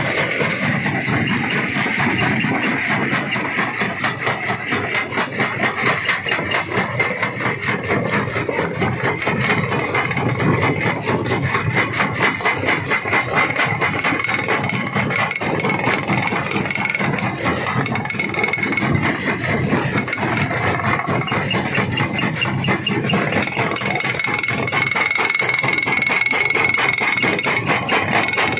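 Stone crusher running steadily: a dense, fast rattling of rock and machinery with a steady high whine over it.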